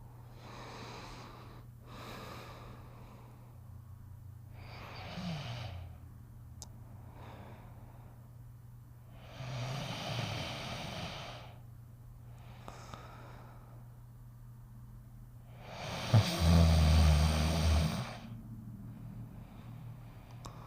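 Cartoon snoring and sleep breathing of Snoopy the beagle: a slow series of breaths in and out over a steady low hum. The longest and loudest is a buzzing snore about sixteen seconds in.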